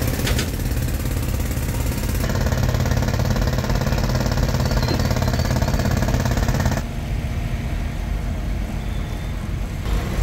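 Heavy diesel earth-moving machinery running with a steady, rapid chugging rumble. The sound changes abruptly about two and seven seconds in.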